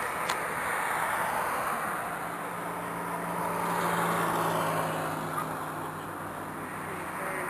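Road noise of a car travelling on a highway: a steady rush of tyres and wind with a low engine hum, swelling a little about halfway through as another vehicle passes alongside.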